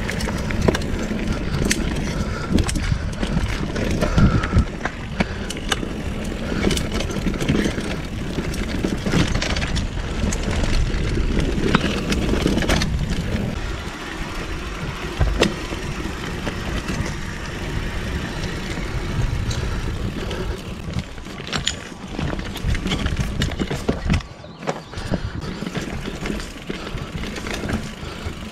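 2015 Giant Trance full-suspension mountain bike rolling over rough dirt singletrack: a continuous rumble of knobby tyres on dirt and gravel, with frequent clicks, rattles and knocks from the bike as it hits roots and rocks. It eases briefly near the end.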